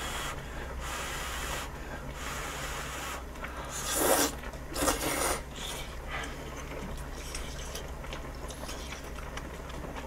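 Person slurping udon noodles, a series of wet sucking slurps with the two loudest about four and five seconds in, then quieter chewing.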